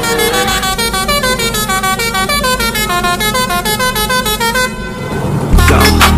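A Indonesian 'telolet' multi-tone bus horn playing a quick tune of short, stepping notes. Near the end, electronic music with a heavy bass beat comes in loudly.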